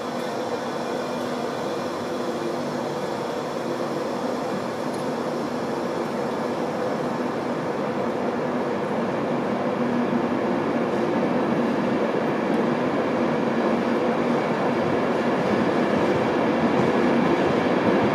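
InterCity 225 express train's Mark 4 coaches rolling past along the platform, a steady rumble of wheels on rail with a faint clickety-clack. It grows gradually louder.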